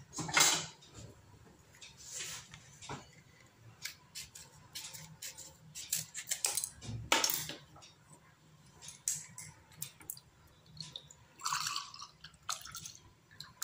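Scattered clinks and knocks of dishes and kitchen utensils being handled, with a few short scraping sounds. The loudest knock comes about half a second in, and there is a cluster of them in the middle.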